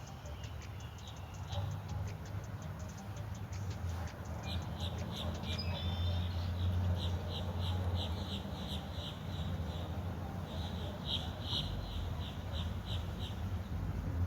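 A bird chirping over and over, a few short high chirps a second, over a steady low hum.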